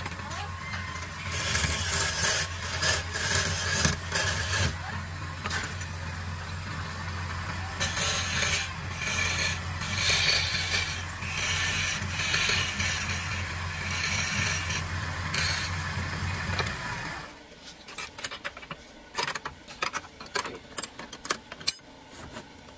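Homemade wood lathe's motor humming while a hand-held chisel cuts the spinning wooden vase, scraping in irregular bursts. The motor stops about three-quarters of the way through, and scattered light clicks and knocks follow as the work is handled in the stopped chuck.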